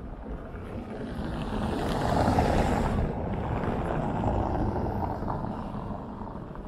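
A vehicle passing close by on a city street: its noise swells to a peak about two seconds in, its hiss drops away sharply just after, and it fades slowly as it moves off.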